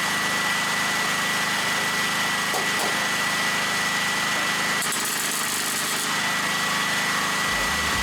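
Portable petrol generator running steadily under load, with a constant hum, a high steady whine and a continuous hiss.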